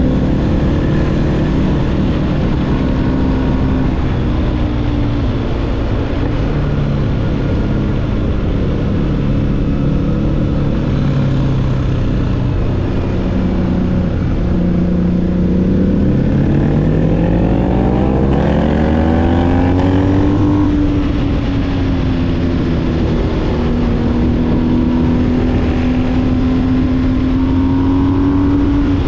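BMW R1250GS boxer-twin engine through an aftermarket SC-Project SC1-R GT exhaust, heard from the rider's seat: running at part throttle through the bends, then accelerating with a steady rise in pitch for about four seconds a little past halfway, before levelling off at a higher steady note.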